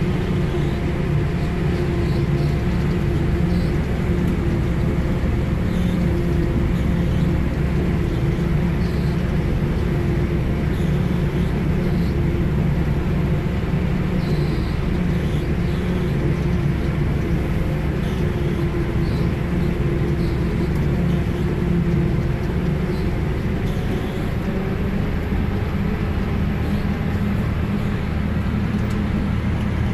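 Self-propelled forage harvester, heard from inside its cab, running steadily under load as it chops standing maize for Shredlage silage. Its engine and chopping gear make a loud, unbroken drone.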